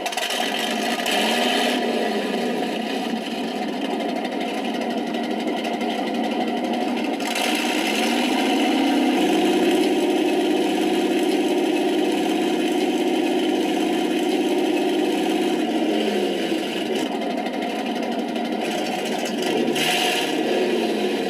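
Simulated RC tank engine sound from a Benedini TBS Mini sound unit. It runs, revs up about eight seconds in, holds the higher pitch for several seconds, then drops back about sixteen seconds in.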